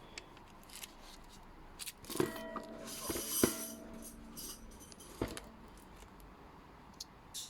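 Steel hole saws from an HSS hole saw set being handled: scattered light clicks and rattling, with two sharper metal knocks about two and three and a half seconds in that ring on briefly with a clear metallic tone.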